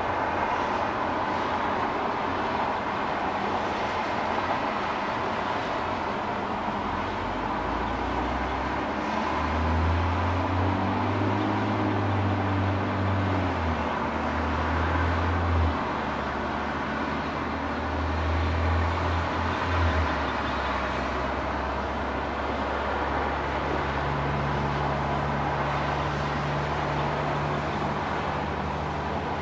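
Distant road traffic: a steady hiss of tyres and engines. A heavier vehicle's low engine drone swells through the middle, its pitch rising and falling, and a steady low hum takes over near the end.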